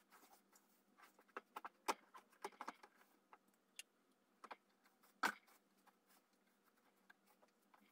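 Faint, scattered clicks and rustles of hands working wood-shaving bedding and plastic PVC pipe connectors knocking as they are buried in a rat cage, with one louder knock about five seconds in.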